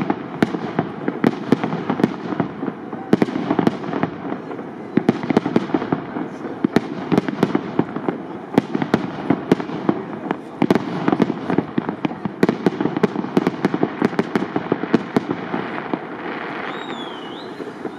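Aerial fireworks display of shells up to 75 mm calibre: a rapid barrage of sharp bangs, several a second, over a continuous rumble, thinning out and getting quieter near the end.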